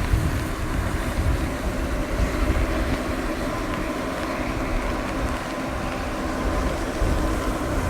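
Lockheed UP-3C Orion's four Allison T56 turboprop engines running, a steady whine of several held tones over a low rumble, with wind buffeting the microphone.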